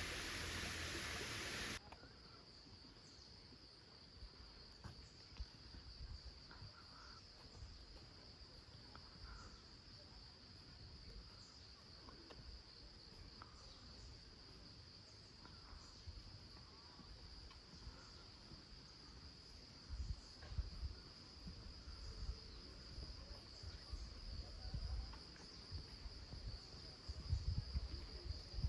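Crickets chirring in a steady, continuous high-pitched trill. A louder hiss cuts off suddenly about two seconds in, and from about two-thirds through there are low thumps on the microphone.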